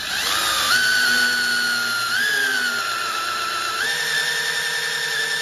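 Drill spinning an oil priming tool that drives the oil pump of a Mercruiser 5.0 MPI engine: a steady motor whine under load, stepping up in pitch three times while oil pressure builds. The pump is priming the oil system, filling the filter, cooler lines and engine with oil.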